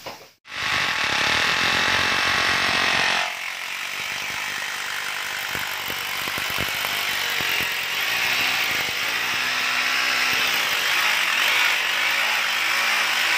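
Electric rotary hammer drill running, a continuous rapid hammering rattle as it bores holes into the floor along the base of a wall. The sound changes character about three seconds in.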